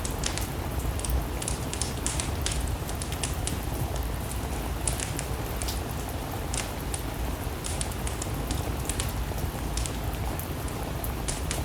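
Steady rain with a wood fire crackling: irregular sharp pops and snaps over a low, even rumble.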